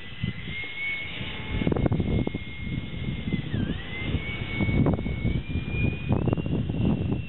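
Electric ducted fan of a foam RC flying wing whining steadily overhead. Its pitch dips briefly twice, once near the start and once about halfway, and steps up about six seconds in. Low rumbling gusts on the microphone are louder than the whine.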